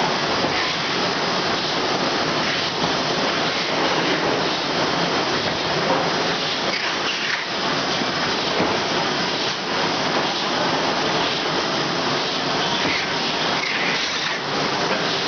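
Rotary cooking-oil filling and capping machine running: a steady, dense mechanical noise with many small clicks.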